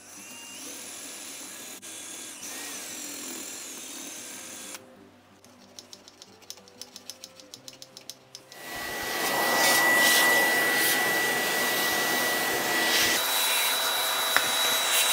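Electric drill running steadily into the soft metal of a lock body, enlarging a hole, with a thin whine that steps up in pitch near the end. Before it starts, a quieter stretch with a quick string of light clicks.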